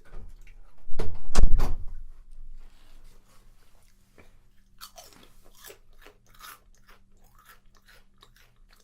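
Close-miked crunching of fresh-made harissa potato chips: a loud bite about a second in, then quieter crunchy chewing around five to six seconds.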